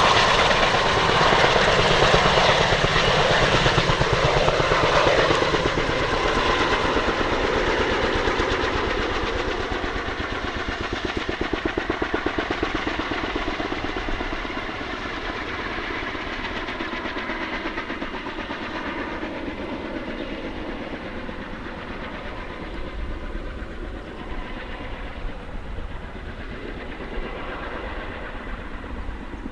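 Kaman K-MAX intermeshing-rotor helicopter taking off and flying away, its rotor beat and turbine whine fading steadily.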